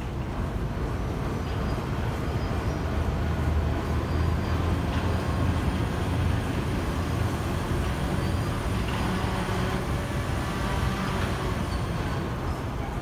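Car ferry's engine running with a steady low rumble as the ferry docks at a landing ramp, growing louder for a few seconds near the middle.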